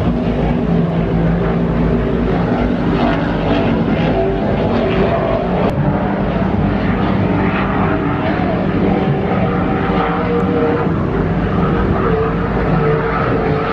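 Offshore racing powerboats running flat out: a loud, steady engine drone whose pitch shifts slowly as the boats run past.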